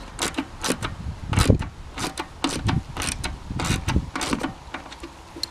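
Small wrench tightening a bolt through the cement mixer's motor hood while pliers hold the nut: a run of irregular metallic clicks and scrapes, several a second, as the tools work on the bolt and the hood shifts.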